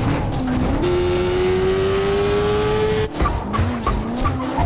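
Car engine revving hard, its pitch climbing steadily for about two seconds, then cutting off abruptly about three seconds in, followed by shorter bursts of engine and tyre noise.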